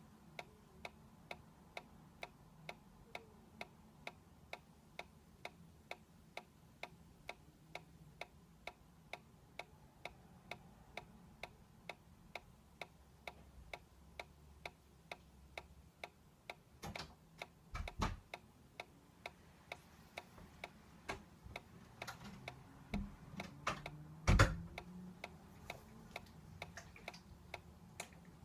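Solar-powered dancing cactus toy ticking steadily, about two and a half ticks a second, as its drive kicks the swaying head. A few louder dull thumps come in the second half, the loudest about two-thirds of the way in.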